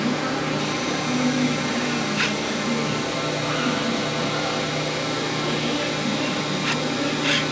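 Hydraulic power unit of a 1999 Cincinnati 60-ton CNC press brake running with a steady hum, with a few sharp clicks about two seconds in and twice near the end.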